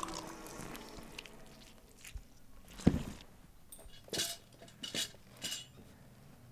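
A single heavy thud about three seconds in, followed by a few sharp metallic clinks and rattles.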